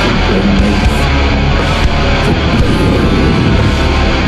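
Death-doom metal music with loud, heavily distorted electric guitar.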